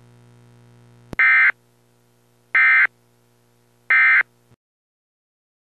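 Emergency Alert System end-of-message data bursts: three short, identical, loud electronic screeches about a second and a half apart, the coded SAME 'NNNN' signal that closes the warning. A faint steady hum and a click come before them.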